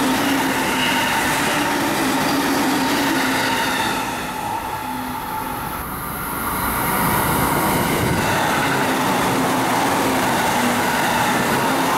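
Tokaido Line commuter electric trains passing: steady rumble of wheels on the rails with a steady motor hum. The sound eases for a few seconds about four to seven seconds in, then comes back up as a second train passes close by.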